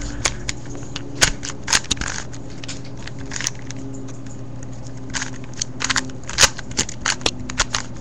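A 3x3 Rubik's cube being turned by hand: irregular plastic clicks and clacks as its layers are twisted, coming in clusters about a second in and again over the last few seconds, over a low steady hum.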